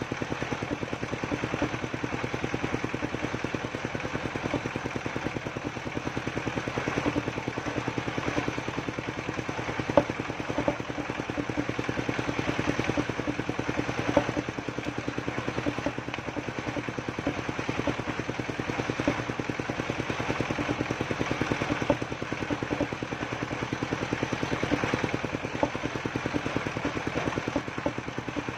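The engine of a mobile circular sawmill running steadily with an even, rapid pulse, with a few sharp knocks of timber being moved on the saw table, clearest about ten and fourteen seconds in.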